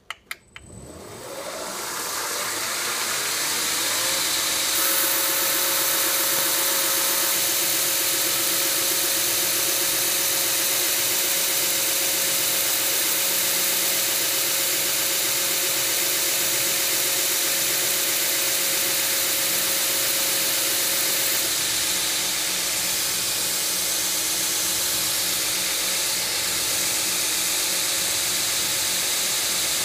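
2x72 belt grinder switched on with a click, its motor whine rising as it spins up over the first few seconds, then running steadily. From about five seconds in, a loud hiss as a steel straight-razor blank is hollow ground against the ceramic belt over the 4-inch contact wheel.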